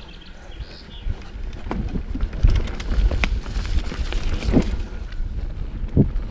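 Mountain bike rolling over a rough trail: tyres rumbling on stones and roots, with irregular knocks and clatters from the bike over bumps, a few harder thumps among them.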